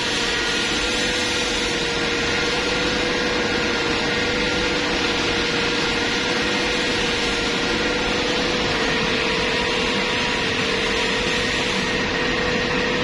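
Gas burner's combustion-air blower running steadily with a constant hum and whine, while the air-damper servo motor drives to the high-fire position for the prepurge at burner start-up.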